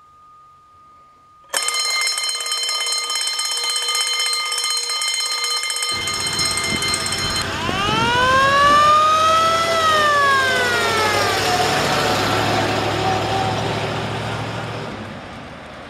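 Fire-engine siren winding up into a wail that rises for a couple of seconds, then falls away, over a rushing noise that fades near the end. Before the wail a steady, high, many-toned sound cuts off suddenly.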